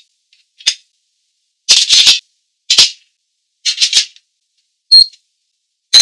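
Abalone shells clattering as they are set down one after another on a ceramic plate, a series of short rattly clacks. Near the end come two sharp electronic beeps from the electric steamer's control panel as its button is pressed to set the timer.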